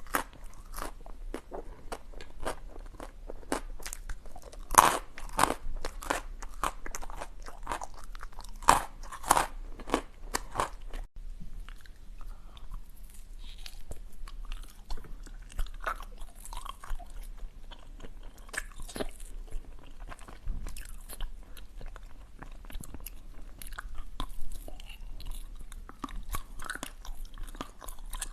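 Ice being bitten and crunched between the teeth close to the microphone: loud, sharp crunches through the first ten seconds or so, then softer, quieter chewing.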